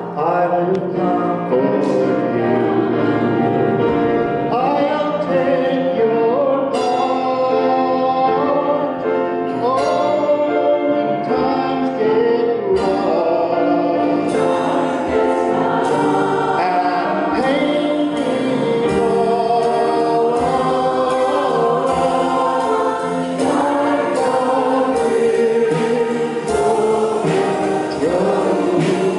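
Mixed-voice choir singing in harmony, with a male soloist singing into a microphone over the choir.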